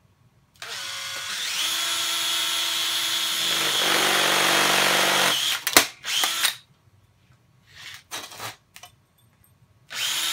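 Cordless drill spinning up and drilling through a thin sheet-metal chip guard with a center drill bit, running for about five seconds before stopping. A sharp click and a few short bursts of the drill follow, and it starts running again near the end.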